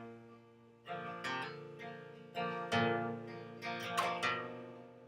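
Acoustic guitar picking a few notes and chords, each ringing out and fading, with a brief drop to near silence under a second in before the playing resumes.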